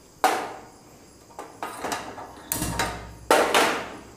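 A gas stove being switched on: four sharp clacks about a second apart as the burner knob is turned and the igniter clicks, the third followed by a brief low rumble as the burner catches.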